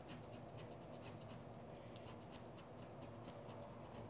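Faint, rapid scraping strokes, several a second, of a wooden stick rubbing the scratch-off coating off a paper lottery ticket.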